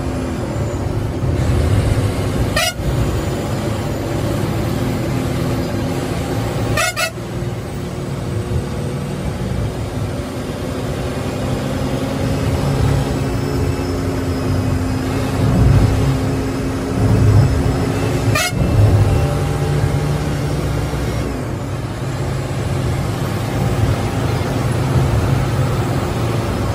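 Bus engine running steadily at highway speed, heard from inside the cab, with a horn sounding on and off. Three brief crackles cut across it, about three, seven and eighteen seconds in.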